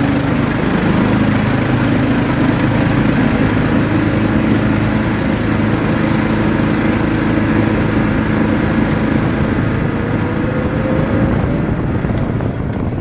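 ATV engine running steadily under way, its low drone holding an even pitch, easing off slightly near the end.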